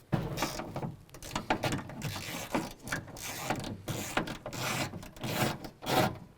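Hand ratchet with a 10 mm socket and extension clicking in quick, uneven runs while backing out the bolts that hold an exterior car door handle.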